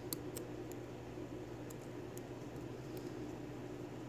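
A few faint, irregular metallic clicks of a steel hook pick working the pins inside a brass Yale 6-pin pin-tumbler lock cylinder under tension, over a steady low hum.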